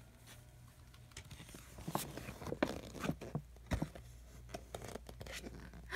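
Paper crinkling and rustling in irregular sharp crackles, starting about two seconds in: a folded album poster being handled and opened out.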